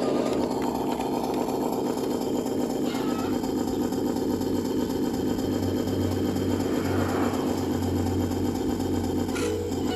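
Radio-controlled model construction vehicle's small electric motors and plastic gearboxes whirring steadily, with a lower hum joining about three seconds in.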